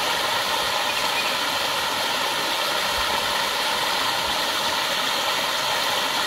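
Stream water rushing and splashing steadily down a small chute, a constant hiss with little low rumble.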